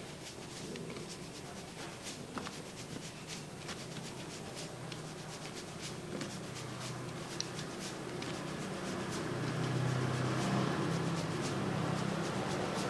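Fingertips rubbing and kneading through hair on the scalp during a head massage, giving scratchy rustling with many small crackles. A steady low hum runs underneath and grows louder over the second half.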